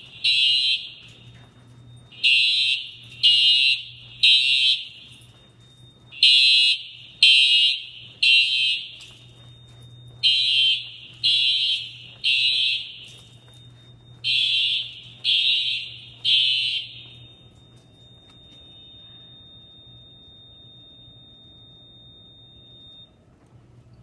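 Simplex building fire alarm horns sounding the temporal-3 evacuation pattern, three high-pitched blasts about a second apart then a pause, repeated, after a manual pull station was tripped on test; the horns stop about 17 seconds in. A faint steady high tone lingers until shortly before the end.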